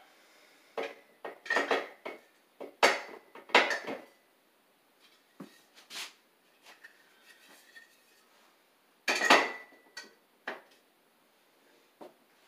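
Metal ClosetMaid shelf brackets clanking and clinking as they are hooked into the slots of metal wall standards. Sharp metallic knocks come with a short ring, in a cluster over the first few seconds and a loud one about nine seconds in.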